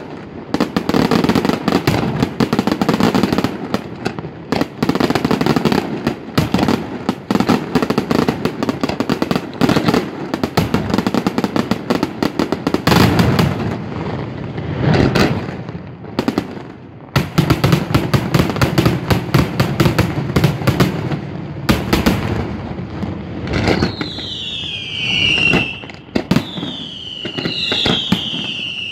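Daytime fireworks display: a loud, dense barrage of bangs and crackling shell bursts, with several falling whistles near the end.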